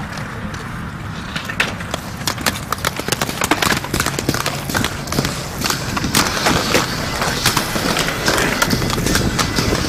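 Inline skate wheels rolling over skatepark concrete, with a run of sharp clicks and clacks that gets busier about three seconds in.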